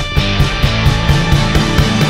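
Rock music with a fast, steady beat.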